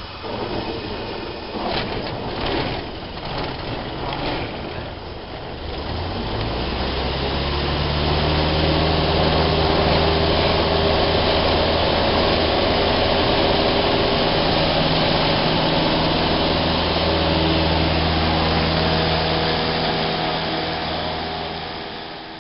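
Light single-engine propeller plane heard from inside the cockpit during a touch-and-go: for the first few seconds it rolls along the runway with the engine low and an uneven rumble and knocking, then about six seconds in the throttle opens and the piston engine rises to a steady full-power run for the takeoff. The sound fades out at the end.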